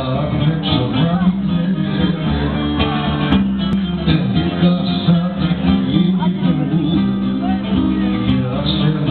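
Live music with plucked string instruments playing.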